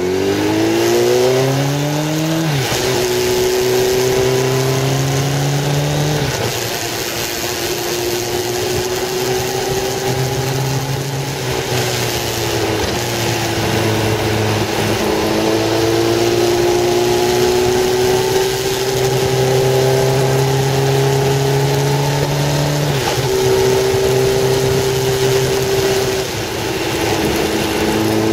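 Motorcycle engine accelerating through the gears, its pitch climbing and then dropping sharply at each upshift, then running at a steady, slowly rising pitch, with wind noise over it.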